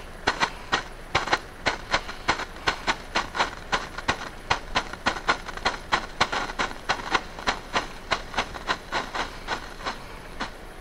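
Pyrotrade green strobe bengal flare burning, giving off a rapid, uneven train of short hissing pops, about four or five a second, one with each flash of its strobe composition.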